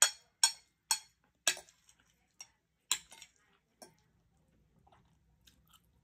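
Cutlery clinking against a plate while food is scooped and mixed: sharp clinks about every half second at first, thinning out after two seconds, then only faint small sounds.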